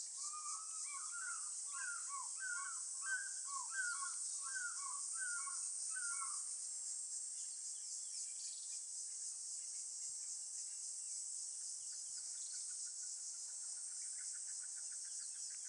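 A steady high-pitched chorus of insects, with a bird singing a run of about ten quick, repeated slurred whistled phrases over the first six seconds, and a fast series of repeated notes starting near the end.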